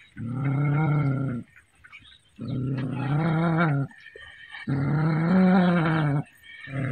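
A dog growling at its own reflection in a mirror, a threat display: three long, drawn-out growls that rise and fall in pitch, with short pauses between them.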